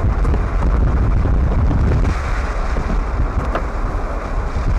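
Steady wind rushing over the microphone, heavy and rumbling in the low end, together with the road noise of a moving vehicle. It eases slightly about two seconds in.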